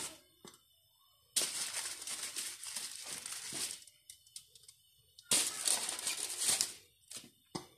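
Aluminium foil crinkling in two bursts of a couple of seconds each as a hand shifts wooden kebab skewers on it, followed by a couple of short clicks near the end.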